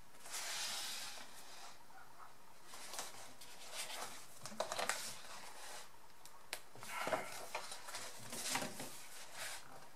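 Paper pages of a coloring book being turned by hand: soft rustles and swishes of paper a few times, with small handling clicks.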